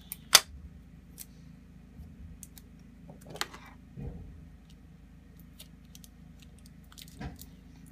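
Handling noises of a small die-cast toy monster truck and tape on a wooden desk: a sharp click just after the start, a short scraping rustle about three and a half seconds in, and soft knocks around four and seven seconds.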